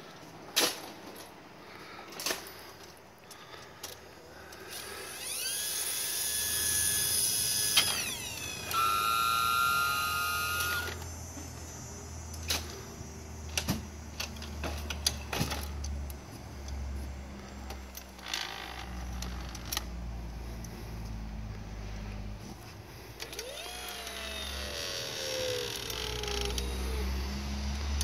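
Stryker powered ambulance cot and its autoloader running their electric-hydraulic motors as the cot is unloaded. The whine comes in separate runs, from about five to eleven seconds in, in two pitches, and again near the end, when its pitch falls. Sharp clicks and clunks of latches and the cot frame fall between the runs, over a low hum.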